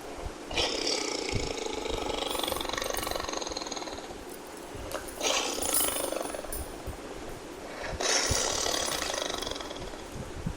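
Tiger roaring three times. Each roar starts suddenly, runs rough and throaty for a couple of seconds, then trails off.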